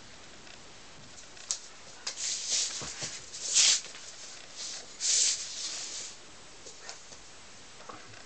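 A Tibetan mastiff puppy moving about on a laminate floor, with a few short scuffling, hissing bursts, the loudest about three and a half and five seconds in.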